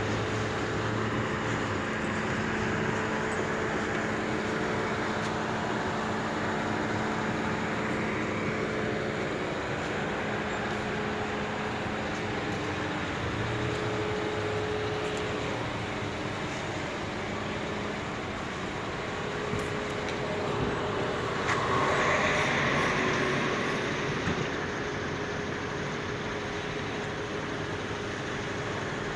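Steady hum of car engines and traffic, with a louder swell for a few seconds about three quarters of the way through.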